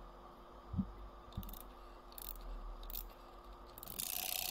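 Chinese wind-up alarm clock's bell ringing, its hammer rattling rapidly against the bell for about a second and a half near the end, as the alarm mechanism is tested after repair. Before it, a few light clicks and knocks of the movement being handled.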